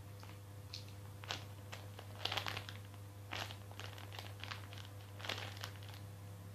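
Scattered crinkling and rustling as a squishy toy is handled, a dozen or so short crackles at irregular intervals.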